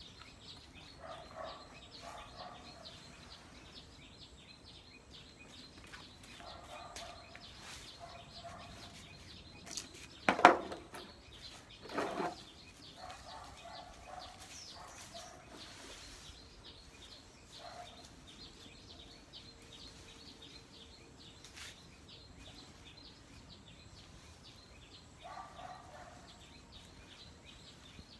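Birds calling now and then in short calls, with two loud cries about two seconds apart a little over a third of the way in. A faint quick ticking runs underneath.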